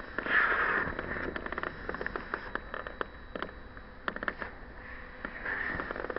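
A page of a large photobook being turned: a paper swish about a third of a second in, followed by many small crackles and ticks of the paper and fingers on it, and a softer swish near the end.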